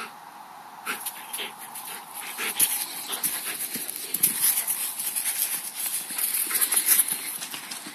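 Quick, uneven footfalls and rustling on dry grass as a young Komondor runs about, mixed with knocks from the handheld camera. The crackling picks up about a second in and stays busy.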